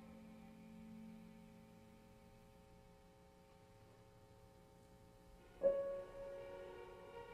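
Steingraeber grand piano: quiet held notes ringing and slowly fading, then a sudden loud strike about five and a half seconds in that rings on.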